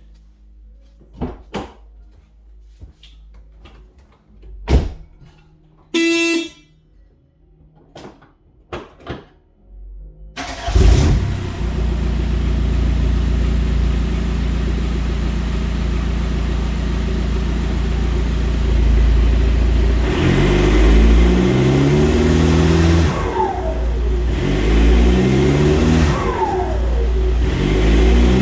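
Clicks and knocks and one short horn-like beep, then the 2004 Volkswagen Passat's 2.0 L BHW four-cylinder turbodiesel, with a cat-back exhaust, starts about ten seconds in and idles steadily. From about twenty seconds in it is blipped several times, and after each rev the turbo whistle falls away.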